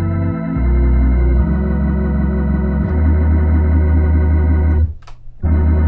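Hammond A100 organ, played through a Leslie 45 speaker, holding sustained chords over a pedal bass that steps to new notes several times. The chord stops about five seconds in and comes back about half a second later.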